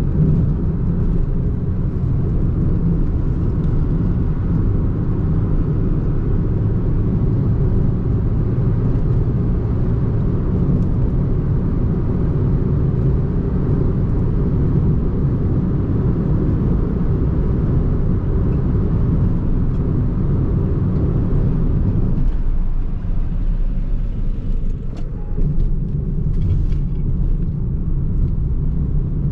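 Renault Twingo I's 1.2-litre four-cylinder petrol engine running with road noise as the car drives along. The engine sound eases off about 22 seconds in and picks up again a few seconds later.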